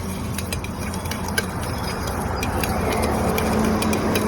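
A metal spoon clinking and scraping in a tin container as masala muri (puffed rice with spices) is tossed and mixed: quick, irregular clicks over a steady background of street noise.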